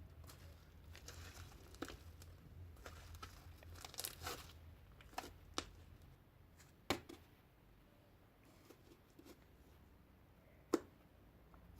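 Slime being played with: faint crinkly, tearing sounds and scattered sharp pops, busiest about four seconds in, with louder single pops near seven and eleven seconds.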